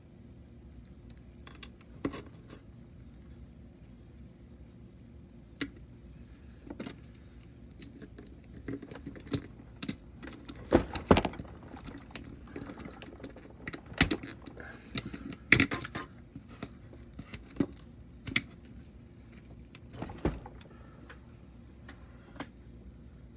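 Irregular plastic clicks, taps and knocks as a TrackMaster toy train's plastic chassis, wheels and white motor unit are handled and fitted together on a table; the clicks come thickest and loudest in the middle.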